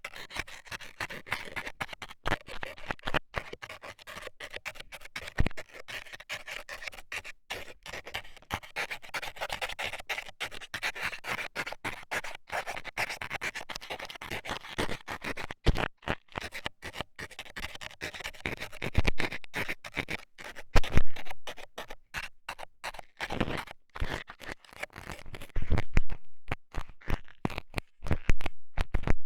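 Metal scaler scraping and poking against an ASMR ear microphone, a rapid run of rough scratching strokes. A few louder knocks come about two-thirds of the way through and again near the end.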